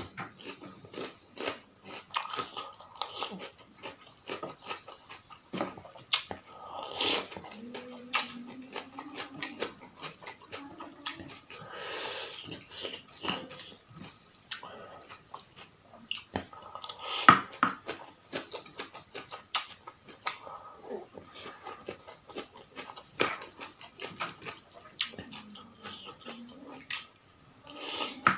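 Close-miked eating of spicy soup noodles: chewing and biting with many short clicks and knocks, the loudest about two-thirds of the way through.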